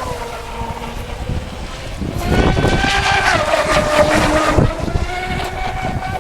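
Electric motor whine of a Genesis RC speedboat's 2075kv brushless motor running on a 4S battery. The pitch and loudness rise as the throttle opens about two seconds in, then ease back to a steadier whine.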